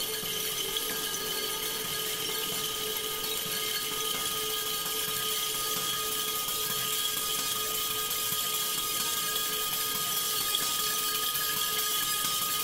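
A small brass cymbal and bell cluster held against a spinning percussion turntable makes a continuous metallic grinding noise, with several steady ringing tones held above it. The lowest ringing tone fades out near the end.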